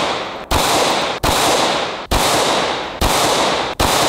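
9mm handgun fired again and again at a steel padlock: five shots about a second apart, each trailing off in a long echo.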